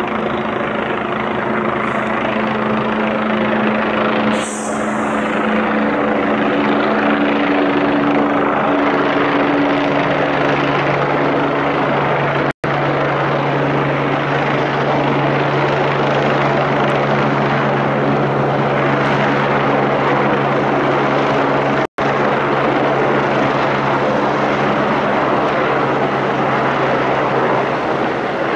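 Agusta A109 twin-turbine helicopter flying low overhead: steady rotor and turbine noise with a low drone whose pitch shifts as it circles. The sound cuts out for an instant twice, about 12 and 22 seconds in.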